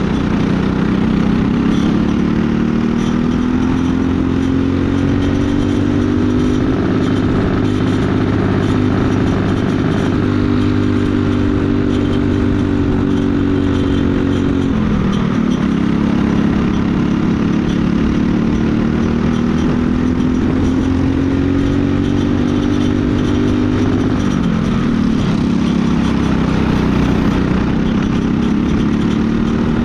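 Briggs & Stratton LO206 single-cylinder four-stroke kart engine running at racing speed. Its pitch climbs gradually under throttle and drops sharply twice, about halfway through and near the end, as it comes off the throttle for corners, then climbs again.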